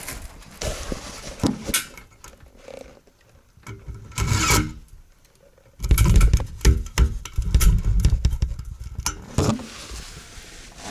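Metal sandwich chimney pipe being handled and pushed into place: scraping and rubbing with irregular knocks, then a run of heavy thumps and clatter about six seconds in.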